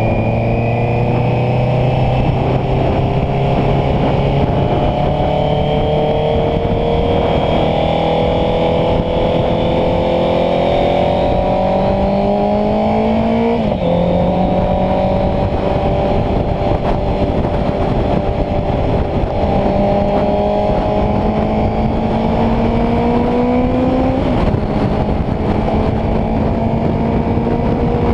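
Honda CBR650F's inline-four engine under way, its pitch climbing slowly and then dropping suddenly at two upshifts, about halfway through and near the end, over a steady rush of wind noise.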